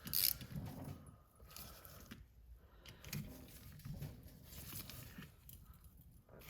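Faint workbench handling noise of tools and turbo parts, with one sharp click just after the start.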